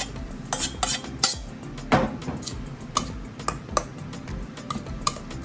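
Spoon scraping and clinking against a stainless steel mixing bowl while noodles are stirred through a thick sauce, in irregular knocks.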